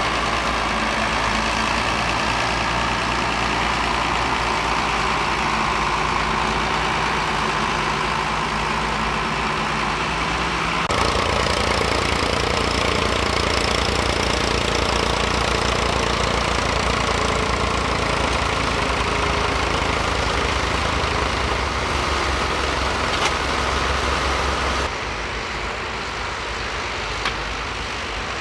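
Ford tractor diesel engines running steadily under load while ploughing: a Ford TW-15 first, then a Ford 7710. The engine sound changes abruptly about eleven seconds in and again near the end.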